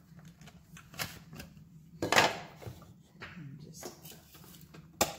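Plastic clicks, knocks and a louder scrape about two seconds in as the lid of a small electric food chopper is taken off and set down.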